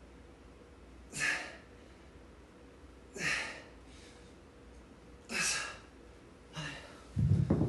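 A man breathing out hard in short forceful breaths, about one every two seconds: three strong ones and a fainter fourth, the effort breaths of seated leg raises with a dumbbell. Music with a heavy beat starts just before the end.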